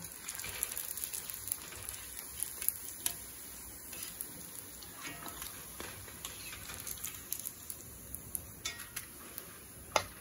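Hot oil in a kadai sizzling and crackling with many small irregular pops as suzhiyam deep-fry. A single sharp click near the end.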